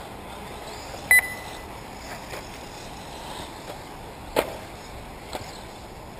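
A short electronic double beep about a second in, over steady track noise; a sharp knock about four seconds in and a fainter one a second later.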